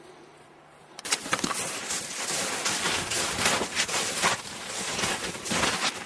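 Boots crunching through snow, a run of walking footsteps that starts abruptly about a second in.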